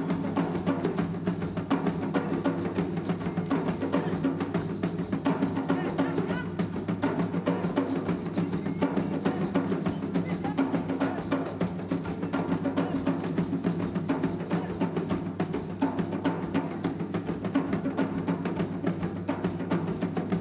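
Music driven by drums and percussion, with rapid, closely spaced strikes at a steady level.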